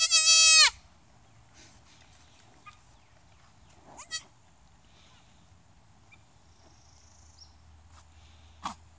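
Newborn goat kid bleating: one loud, high bleat at the start that drops in pitch as it ends, then two short, quieter calls, about four seconds in and near the end.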